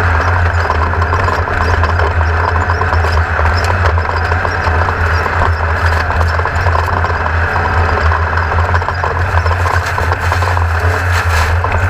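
A racing vehicle's engine running loud and steady at an even pitch, with a rough rushing noise over it.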